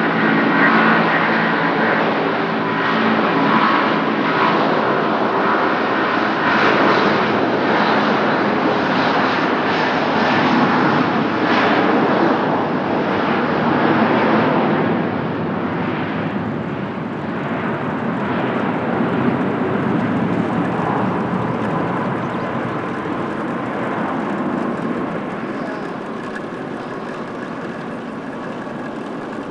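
Airbus A330-300's twin Pratt & Whitney PW4000 turbofans at takeoff thrust: a loud, steady jet roar with a faint whine in it, fading gradually over the second half as the airliner moves away.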